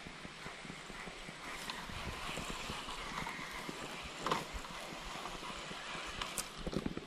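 Baitcasting reel being handled: small scattered clicks and ticks from the reel over a soft rustle, with a sharper click a little past halfway and a few more near the end.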